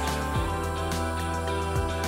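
Instrumental background music: sustained notes over a recurring low beat.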